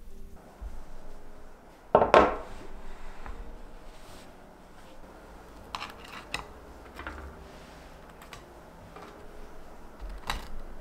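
A plate set down on a wooden table with a loud knock about two seconds in, followed by several light clicks and knocks of tableware.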